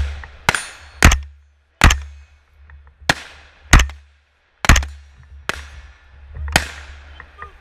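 Semi-automatic rifle firing eight single shots at an uneven, unhurried pace, roughly one a second, each with a short echoing tail.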